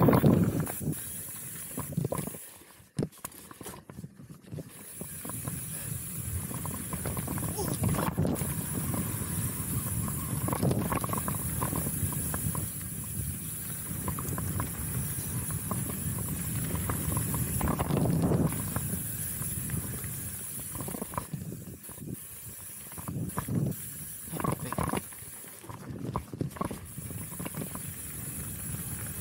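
Chromag Rootdown steel hardtail mountain bike rolling down a dirt singletrack: tyre noise on dirt and the rattle of the bike over rough ground, with wind rushing over the microphone. The noise swells and eases as the trail changes, dropping briefly a few seconds in.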